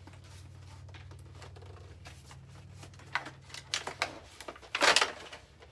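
Toy packaging being handled and pulled open: a few sharp clicks and rustles, ending in a brief louder rustle near the end, over a faint steady low hum.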